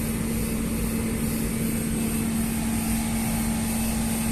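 A steady machine hum: one constant low tone over an even background noise, with a fainter, higher tone that fades out about two seconds in.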